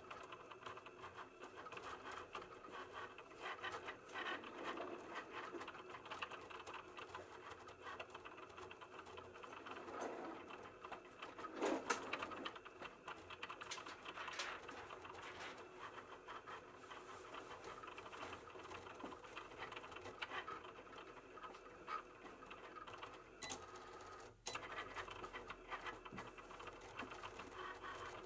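Cricut cutting machine running a print-then-cut job: its motors whir steadily as the blade carriage and mat shuttle back and forth, cutting around the printed designs. There is a brief louder surge about twelve seconds in.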